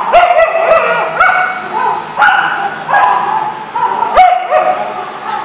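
Dogs barking and yipping, short high calls coming several times a second, often overlapping at different pitches.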